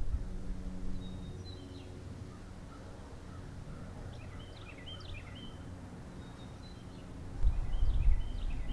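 Backyard songbirds giving short, high chirps in three brief clusters. A low rumble underneath grows loud about seven seconds in and is the loudest sound near the end.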